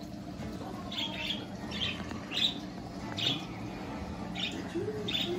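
Pet parakeets (budgerigars) chirping in the room: about seven short, high chirps spaced out over a few seconds, over a steady low hum.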